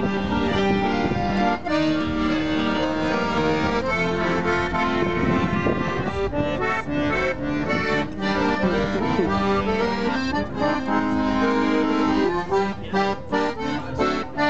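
Piano accordion playing a tune: held chords under melody notes that change about once a second, breaking into short choppy staccato notes near the end.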